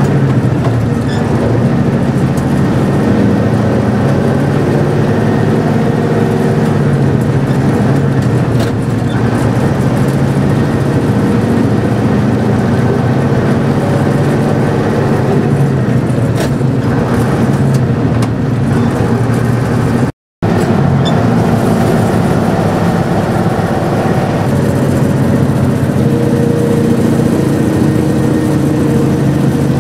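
A vintage Fiat truck's diesel engine runs under way, heard from inside the cab. The engine note steps down and back up several times as the driver double-declutches through the gears, from second high to third in the reduction range. There is a brief complete dropout about two-thirds of the way through.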